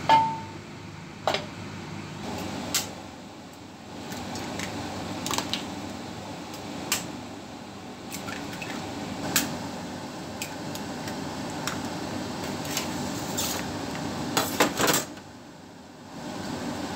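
Metal utensils knocking and clinking against a frying pan at irregular intervals as vegetables and sausage are stirred in it, over a steady background noise. A loud ringing metal strike at the start and a quick cluster of knocks near the end.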